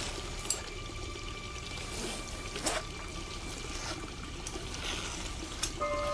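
Tap water running steadily into a sink. A few short, sharp swishes of a straight razor being stropped on a leather strop sound over it.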